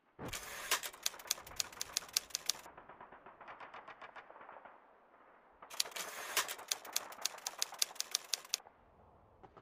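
Typewriter key clatter, a sound effect: two fast runs of typing, each a few seconds long, with fainter tapping between them.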